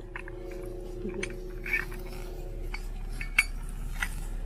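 Scattered light metallic clinks and clicks of an aluminium snatch block and its rigging hardware being handled, the sharpest click about three and a half seconds in. A steady hum runs underneath and stops about halfway through.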